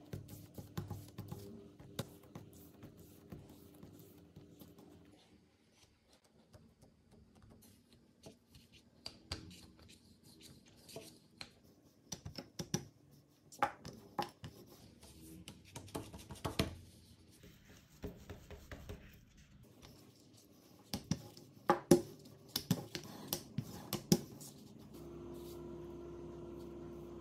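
Hands working soft brioche dough on a marble worktop: quiet rubbing and patting, broken now and then by sharp knocks of a wooden rolling pin and hands on the marble. A steady hum sets in near the end.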